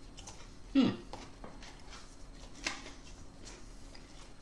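Small handling sounds from an open Pringles can as a chip is taken out: faint scattered clicks and rustles, a brief loud sound that falls sharply in pitch about a second in, and a sharp click a little before three seconds.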